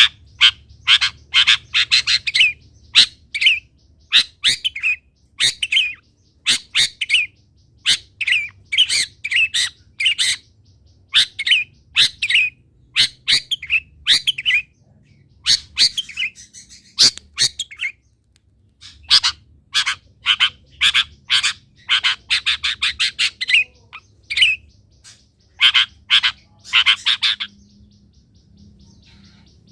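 Long-tailed shrike (cendet) singing: rapid runs of harsh, chattering notes and dense trilled phrases, with short pauses between bursts.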